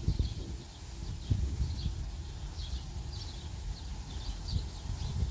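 Wind gusting against the microphone in irregular rumbling surges, with birds chirping in short repeated calls throughout.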